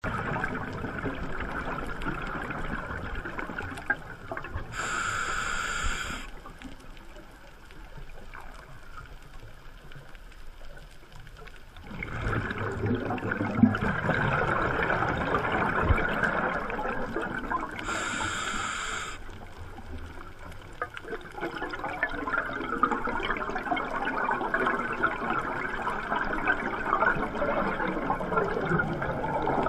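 A scuba diver's regulator breathing underwater: two inhalations, about five and eighteen seconds in, each followed by a long stretch of bubbling exhalation.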